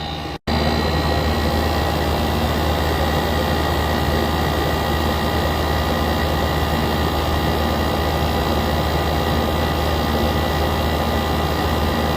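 PTAC air conditioner running with its compressor on: a loud, steady low drone that starts abruptly about half a second in. The noise could come from worn compressor grommets, the rubber mounts that isolate the compressor.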